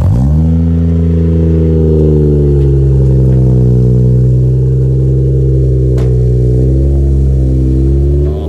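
Toyota Soarer's engine idling steadily, heard at its single round tailpipe, with the revs rising briefly right at the start before settling. A single sharp click sounds about six seconds in.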